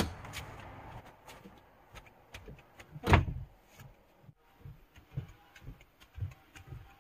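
A door banging shut once about three seconds in, followed by scattered soft thumps.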